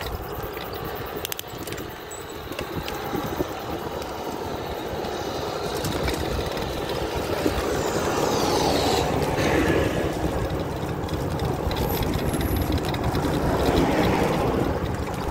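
Traffic and riding noise heard from a bicycle-mounted camera on a highway shoulder: a steady rumble with vehicles passing. About halfway through, a whine falls in pitch as a vehicle goes by, and the noise grows louder through the second half.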